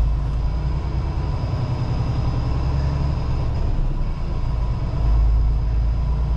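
Semi-truck's diesel engine running at low speed, heard from inside the cab as a steady low rumble that swells a little about five seconds in.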